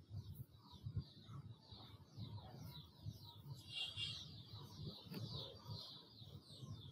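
Birds chirping faintly in the background: a steady run of short, high chirps, several a second, loudest about four seconds in. A couple of faint clicks sound underneath.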